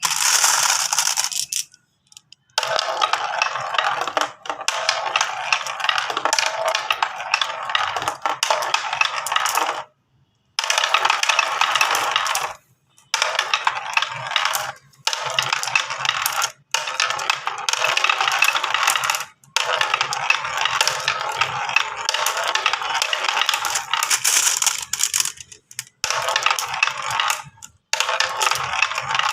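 Many marbles rolling and clattering together down a marble-race track, a dense run of rapid clicks broken by several brief silences.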